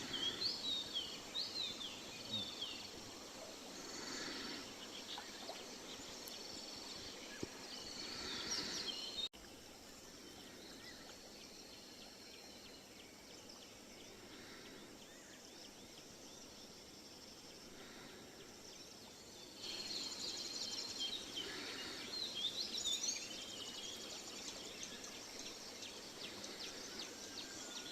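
Birds chirping and calling over a steady outdoor hiss. The birdsong drops away suddenly about a third of the way in and comes back about two-thirds of the way through.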